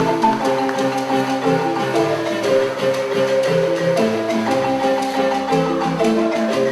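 Music played on mallet percussion: a marimba-type instrument sounding a steady, even run of notes.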